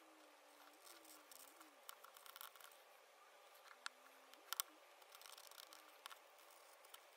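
Faint scratching of a craft knife blade cutting along a small template on a cutting mat, in short strokes, with a few sharp clicks from handling the piece around the middle.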